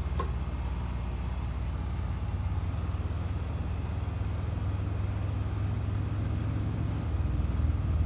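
Outdoor air-conditioning condensing unit running: the compressor and condenser fan give a steady low hum. The hum grows a little stronger near the end as the compressor comes fully up to running.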